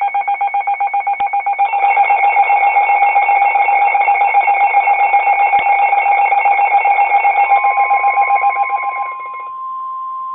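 Emergency alert tones: a loud, rapidly pulsing electronic alarm tone that starts abruptly and thickens with more tones about two seconds in. About seven seconds in a single steady tone joins, and it carries on alone once the pulsing stops near the end.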